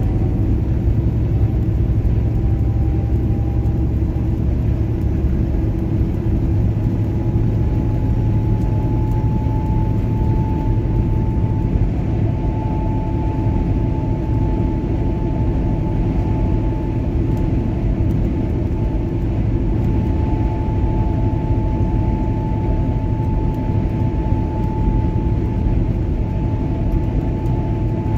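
Road noise of a vehicle driving at highway speed: a steady drone of tyres and engine with a faint steady hum.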